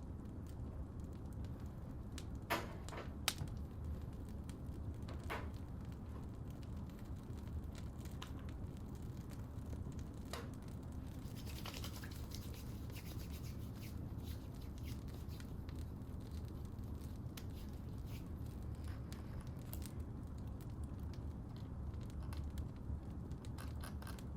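Crackling fireplace: a steady low rumble with scattered small pops and crackles, two sharper snaps a few seconds in, and a brief hiss about halfway through.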